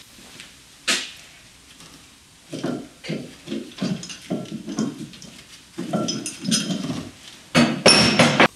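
Metal parts being handled and set down: a sharp click about a second in, then a run of irregular knocks and clatter, ending with louder metallic clinks that ring near the end.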